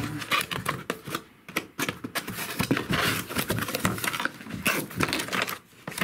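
Cardboard box being opened by hand: a seal sticker is peeled off and the flaps are pulled open, giving irregular scraping, rustling and tapping of cardboard, densest about halfway through.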